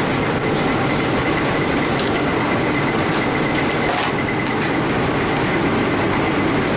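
Steady noise of commercial kitchen ventilation running, with a faint high whine held throughout. A few light clicks and taps of plates and plastic tubs being handled sound over it.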